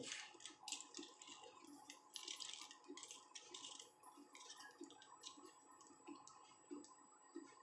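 Faint, scattered light clicks and handling noises from a metal anchor bolt being handled and measured.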